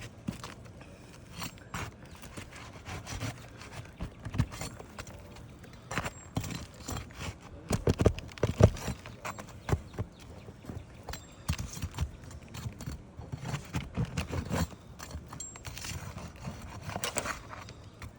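A metal hand tool working under shingles to pull out roofing nails: irregular taps, clinks and scrapes, with a run of louder knocks about eight to nine seconds in.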